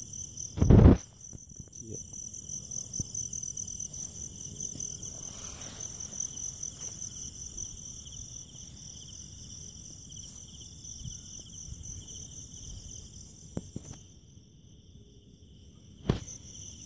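Night insect chorus: a steady, high, finely pulsing trill with a second, lower trill beneath it. A loud thump about a second in and a sharper knock near the end cut through it.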